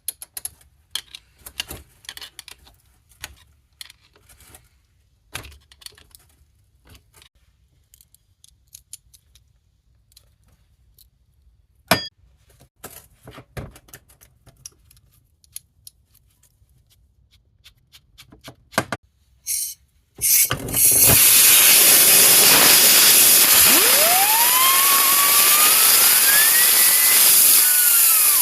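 Scattered clicks and taps of metal parts being handled, with one sharp ringing metallic clink partway through, while work goes on at a seized 4L80E transmission planetary gear set. About two-thirds of the way in a power tool starts and runs loudly on the metal, with a whine that rises in pitch, and it cuts off at the end.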